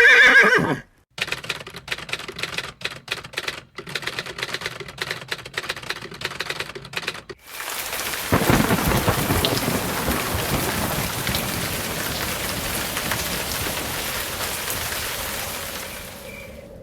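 A roar ends in the first second. Then a stretch of rapid, irregular typewriter keystrokes with brief pauses. About seven seconds in, a low thunderclap breaks into a thunderstorm of steady heavy rain that slowly fades toward the end.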